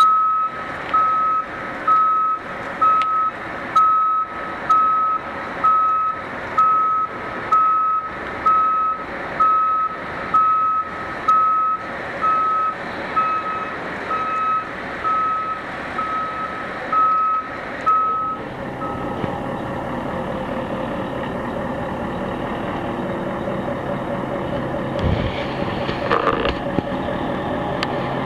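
Heavy truck's reversing alarm beeping steadily, about one beep a second, over its diesel engine. The beeping stops about 18 seconds in, leaving the engine running steadily, with a couple of clanks near the end.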